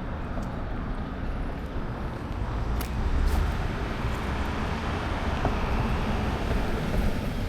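Road traffic: a steady rumble of passing vehicles that swells about three seconds in.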